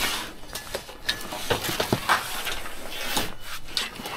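A long rod dragged out of a tangle of network cables and scrap in a skip: rustling, scraping and rubbing, with many short light knocks and clicks.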